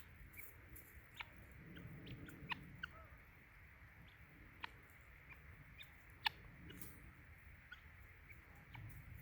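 Near silence: quiet outdoor ambience broken by scattered faint, short ticks and chirps.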